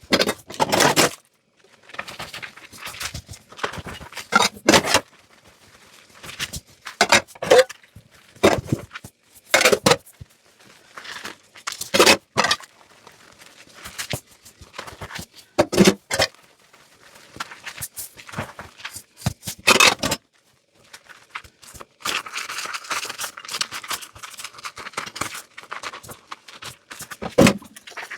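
Dishes and cutlery being handled and washed in a kitchen sink: irregular clinks, scrapes and clatters every second or two, with a steadier hiss over the last few seconds.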